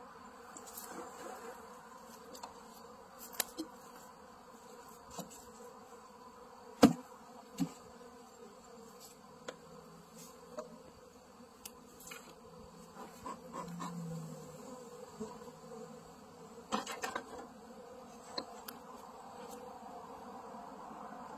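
Honeybees buzzing steadily around an open hive, with scattered sharp knocks and clicks, the loudest about a third of the way in and a quick cluster about four-fifths through. A lower hum swells briefly about two-thirds of the way in.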